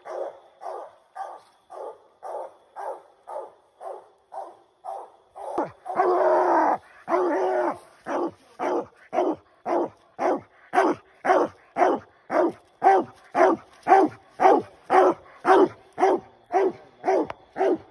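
Treeing walker coonhound barking treed at raccoons, a steady chop of about two barks a second, the sign that the hound has the coon up the tree. The barks are fainter at first, then grow louder about six seconds in, with two longer drawn-out barks before the steady chop resumes.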